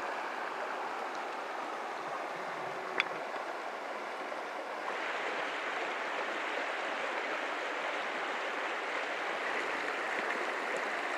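A small stream running over rocks, a steady rush of water that grows a little louder about five seconds in. A single sharp click sounds about three seconds in.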